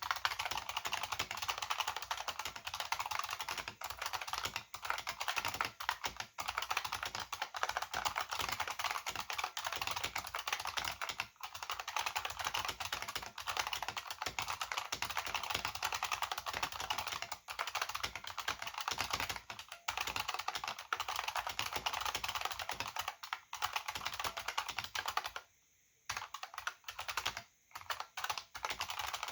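AT&T KBD 305B-AA keyboard with buckling-spring switches and PBT dye-sub keycaps being typed on quickly and continuously, a dense run of key clicks. The typing pauses briefly twice near the end.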